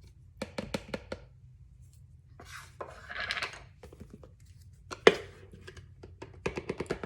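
Kitchen utensils clicking and tapping against a bowl as cornstarch is added to the chicken: a few quick runs of taps, a soft scrape about three seconds in, and one sharp knock about five seconds in.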